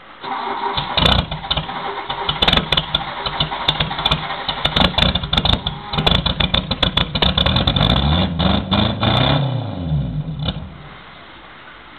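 Exhaust of an R18's engine, revved again and again with sharp crackling pops. The pitch rises and falls with each rev, and the sound drops back to a quiet level about ten and a half seconds in.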